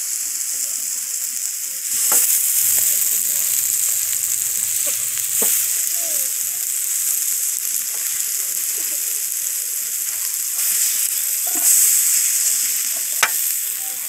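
Raw ram ribs sizzling on a hot perforated steel grill plate over a charcoal stove: a steady, high hiss, broken by a few sharp clicks.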